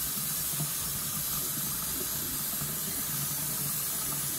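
Kitchen sink faucet running in a steady stream as a wig on a mannequin head is rinsed of leftover conditioner.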